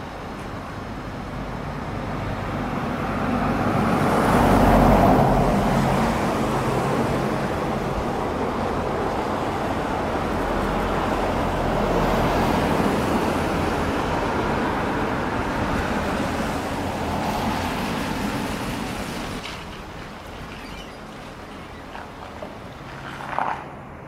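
Road traffic: a vehicle's engine and tyre noise swelling to a peak about five seconds in, holding for a long stretch, then falling away near the end.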